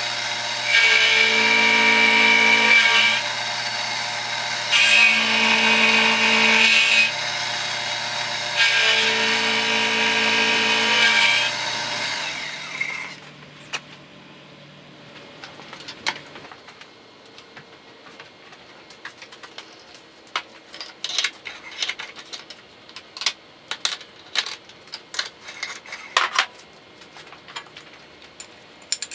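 Excello milling machine's end mill cutting rectangular tubing, loud and ringing in three surges with a steady motor hum beneath. The cut stops about twelve seconds in, the spindle hum dies away a few seconds later, and scattered light clicks and taps follow.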